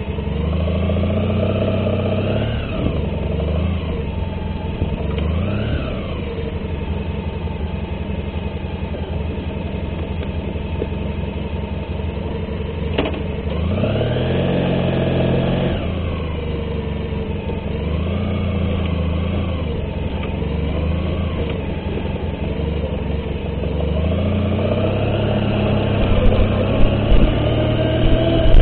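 A vehicle engine running under load, revving up and easing off about five times, with the rises near the start, the middle and the end. It grows louder and rougher in the last couple of seconds.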